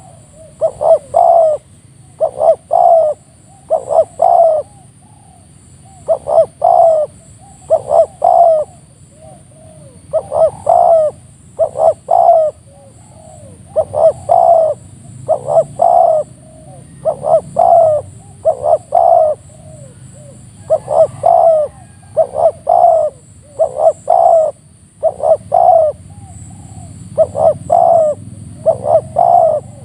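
Spotted dove cooing over and over: short phrases of two or three notes, repeated about every one and a half seconds.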